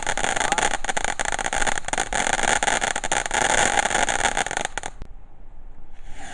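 Firework burning with a steady loud hiss full of crackles, cutting off suddenly about five seconds in; a short hiss flares up near the end.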